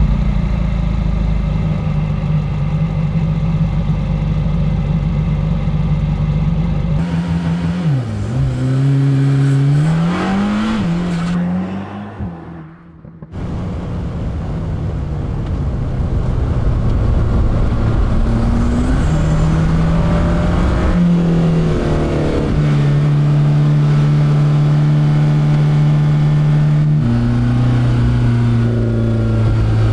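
Mercedes-AMG GT Black Series' 4.0-litre flat-plane-crank twin-turbo V8 running. It is held at steady revs, then revs up and down, and drops out briefly around the middle. It comes back at steady revs, stepping up in pitch and then dropping in pitch near the end.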